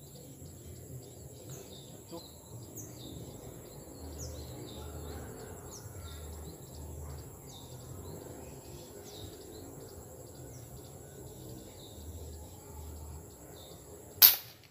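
Steady insect whine and short falling bird chirps from the swamp edge, then, near the end, a single sharp, loud air-rifle shot fired at fish in the water.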